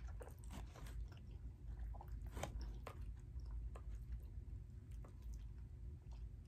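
A person chewing food close to the microphone, with irregular small wet mouth clicks, over a steady low hum.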